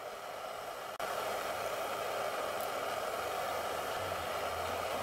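A steady rushing hiss that jumps louder about a second in, with a low hum joining near the end; no hammer blows.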